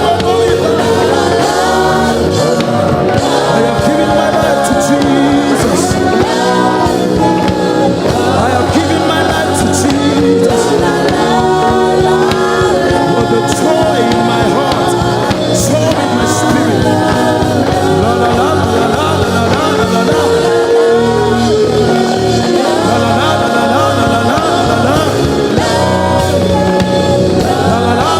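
Live gospel worship music: voices singing long, flowing wordless lines over steady instrumental accompaniment.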